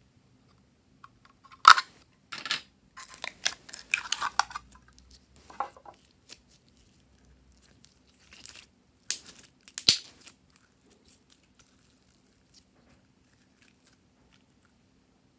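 Glossy pink slime being pulled from a plastic mould and squeezed by hand, making irregular short sticky, wet bursts; the loudest come a little under two seconds in and about ten seconds in, and the handling noises stop soon after.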